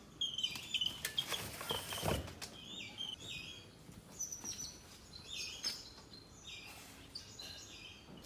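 Birds chirping: short high calls repeated in quick runs, with some rustling and a thump about two seconds in.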